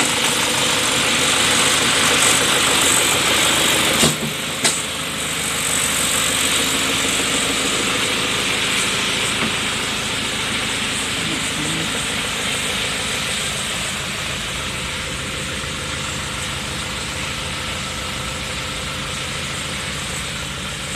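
Isuzu 4JB1 turbo diesel four-cylinder engine in an Opel Blazer idling steadily with diesel clatter. Two sharp knocks come about four seconds in.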